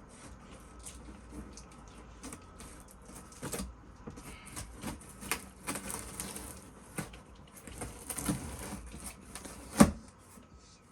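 Cardboard box and packaging being handled as it is opened: rustling, scraping and many small clicks, with one louder knock near the end.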